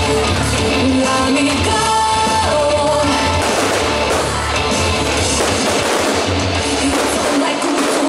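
Music with singing, with a steady low beat. About three and a half seconds in, a rough noisy hiss joins it.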